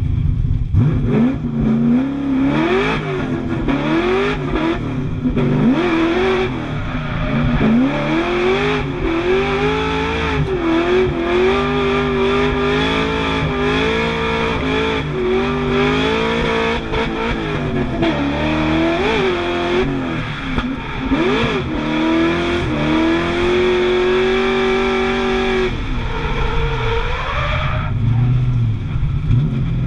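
LS3 V8 engine of a Toyota Cressida drift car being driven hard. It revs up and down in short, repeated rises for the first several seconds, then is held at high revs with small dips, and drops away near the end.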